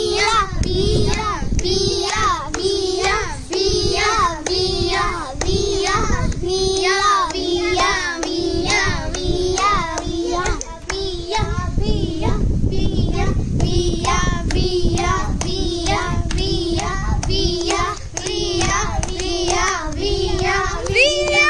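Music: a song sung in a high voice, in short repeating phrases over an accompaniment.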